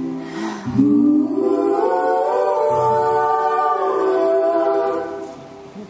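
Two women and a man singing slow, held notes together in close harmony, fading away about five seconds in.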